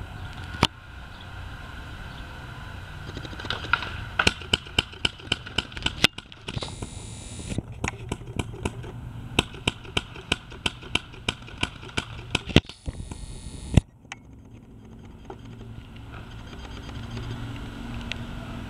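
Paintball markers firing: sharp pops, some in quick strings of about four to five a second. A hiss of about a second cuts in twice.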